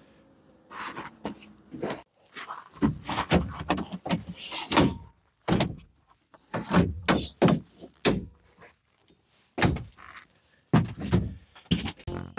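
Ford F-150 Lightning's fold-out tailgate step being pulled out and locked into place: a string of sharp clunks and clicks.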